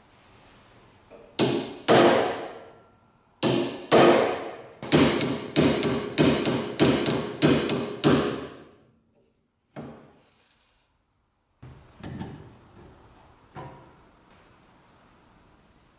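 Hammer striking a steel pin punch to drive the pin out of a wooden handle on a rusty iron bread cutter lever, about a dozen ringing metallic blows, first in pairs and then in a quick run of about three a second, stopping about halfway through. A few lighter knocks follow near the end.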